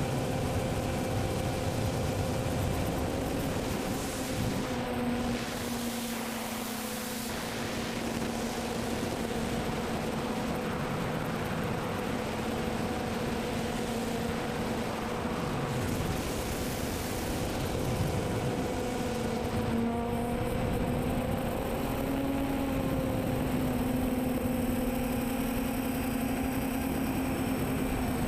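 Quadcopter's electric motors and propellers humming steadily in flight, the pitch shifting slightly now and then, with wind rushing over the onboard camera's microphone.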